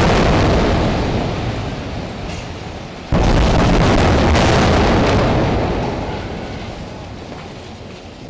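Two heavy airstrike explosions on a tower block: a blast already fading into a long rumble, then a second equally loud blast about three seconds in that rumbles away slowly.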